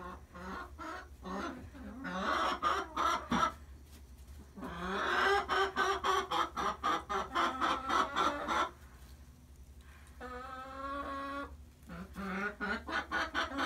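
Domestic hens clucking in several bouts of low, rapidly pulsed calls, then a longer, steadier-pitched call about ten seconds in, over a constant low hum.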